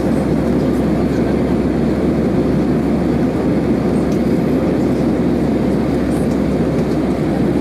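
Steady cabin drone of an Airbus A320-214 climbing after take-off, inside the cabin: its CFM56 engines and the rush of air over the fuselage make an even, deep rumble.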